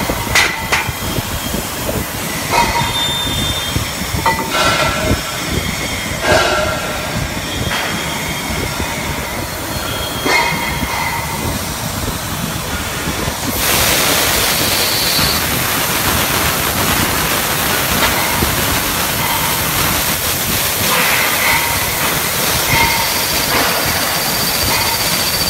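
CNC thread-cutting machine for gas cylinders running, with scattered metallic clanks and short squeals. About halfway through a louder steady hiss sets in and continues, with a faint high whine over it.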